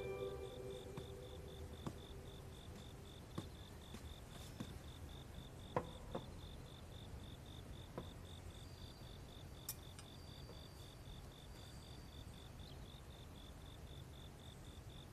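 Faint crickets chirping in a steady, rapid pulse, with a few soft taps and knocks here and there.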